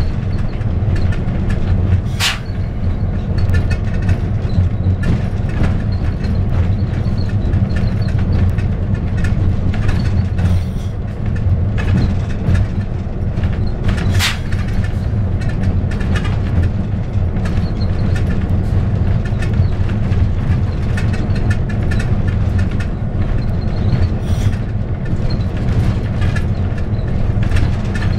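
A train rolling along the track, heard from its front end: a steady low rumble of the locomotive and the wheels on the rails, with scattered small clicks. Two sharp, short sounds stand out, about two seconds and fourteen seconds in.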